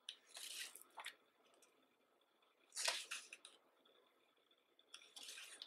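Pages of a thick hardcover photo book being turned by hand: three soft paper swishes, the loudest near the middle.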